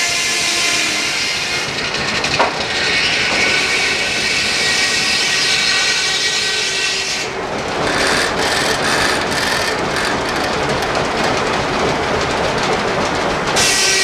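Steam-powered sawmill running: the large circular head saw cuts through a log with a steady ringing whine and a sharp knock a couple of seconds in. From about halfway, a noisier rapid clicking clatter as the log carriage and its setworks are worked, before the steady whine returns near the end.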